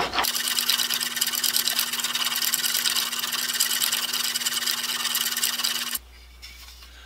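Stanley No. 8 plane blade being honed on a wet water stone: rapid, rhythmic scraping strokes of steel on stone that stop abruptly about six seconds in.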